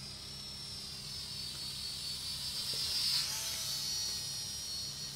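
Small radio-controlled model airplane's motor and propeller buzzing in flight, a high thin whine that swells to a peak about three seconds in and then drops in pitch as it passes by.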